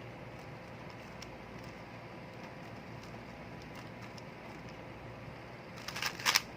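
Rubik's cube being turned through an algorithm: faint clicks of the plastic layers turning, with a short run of louder clacks near the end, over a steady room hiss.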